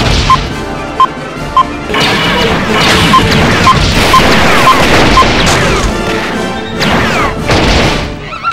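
Action soundtrack of dubbed gunfire, crashes and bangs over music, one sudden hit after another.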